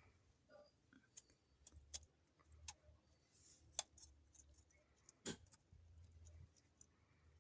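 Near silence with a handful of scattered light clicks and taps, the sharpest about four and five seconds in, over a faint low hum.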